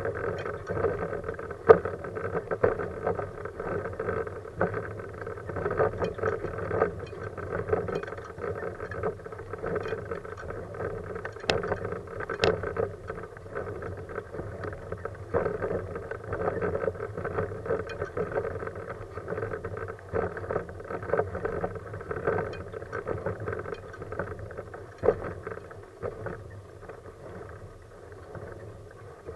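Kuschall K-series manual wheelchair with a FreeWheel front wheel rolling along asphalt: a steady rolling rumble of tyres and frame, with uneven swells and a few sharp clicks.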